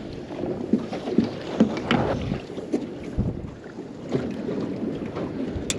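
Water slapping against a boat's hull, with wind on the microphone and scattered short knocks and splashes.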